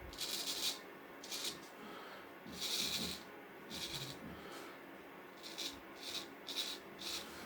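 Hands handling objects: a series of short, irregular rustling and rubbing sounds.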